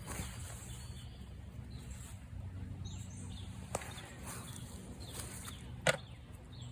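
Faint outdoor background with a low steady hum, broken by two brief sharp clicks, the second louder, near the middle and toward the end.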